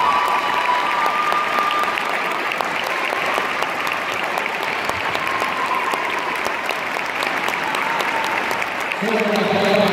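Audience applauding steadily, a dense patter of clapping at the end of a performance. A voice begins near the end.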